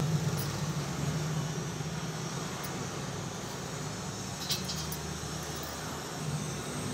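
Steady low hum and hiss of a stove burner heating a steel pot of milk coffee at the boil, with a couple of faint clicks about two and a half and four and a half seconds in.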